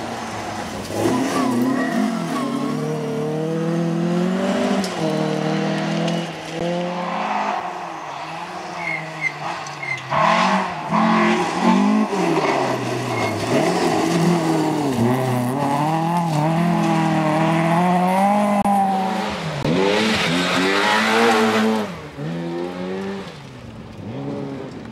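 Rally cars driving flat out on a gravel stage one after another, engines revving up and dropping back through gear changes, each pitch rising and falling. About twenty seconds in, a louder rush of noise as a car passes close.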